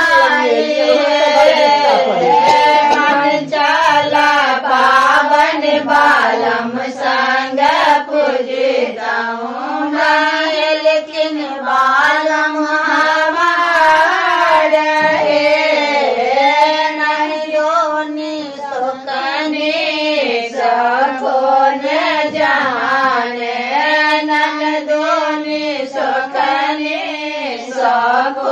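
Women singing a Maithili Madhushravani folk song together, a continuous, wavering melody.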